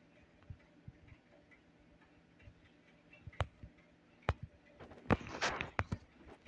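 Handling noise from fingers on a phone: scattered faint clicks and taps, turning into a denser run of louder clicks and rubbing about five seconds in.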